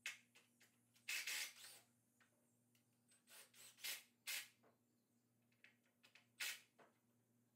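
Faint short scrapes and rubs of wooden 2x4 boards being handled and set against each other on a concrete floor, in three clusters: about a second in, around four seconds in and near the end. A faint steady low hum sits underneath.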